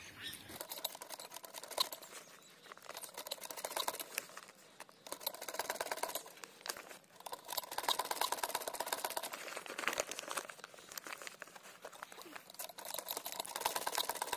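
Singer-pattern sewing machine stitching through woven plastic sack cloth: a fast, even clatter of needle strokes that comes in runs, stopping briefly a few times as the seam is turned.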